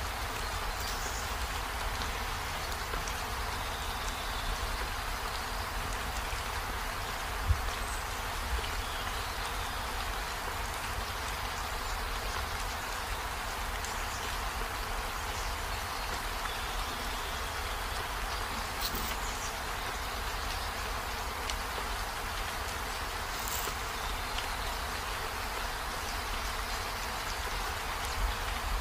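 Steady outdoor buzz of insects among garden plants, with a low rumble of wind on the microphone and a couple of brief knocks from handling the phone.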